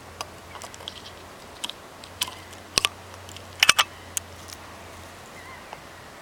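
Sharp metallic clicks and taps as 10-gauge blank shells are handled and loaded into the breech of a stainless double-barrel signal cannon. There is a close pair of clicks a little under three seconds in and a louder cluster about a second later.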